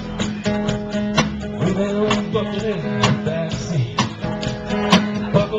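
Live country-style band playing an instrumental passage: strummed acoustic guitar, upright bass, and a small drum kit with a sharp hit roughly every two seconds. Sliding, gliding notes run through it, fitting the lap steel guitar being played.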